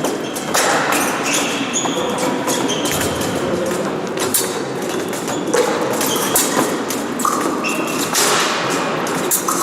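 Fencing bout in progress: repeated thuds of footwork on the piste and sharp clicks, with short high squeaks now and then, over the steady din of a large hall.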